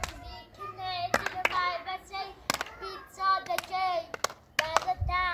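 A child singing a song, with several people clapping their hands along at uneven intervals, several claps close together near the end.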